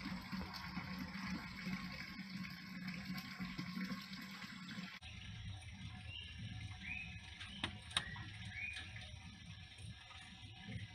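Steady outdoor background noise with a low hum that changes abruptly about five seconds in. A few short bird chirps and two sharp clicks follow.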